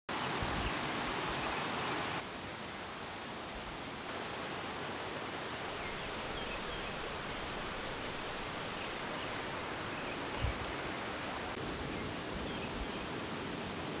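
Mountain stream rushing over rocks and a small cascade, a steady rush of water that changes its tone about two seconds in. Faint high chirps sound now and then over it, and there is a brief low bump about ten seconds in.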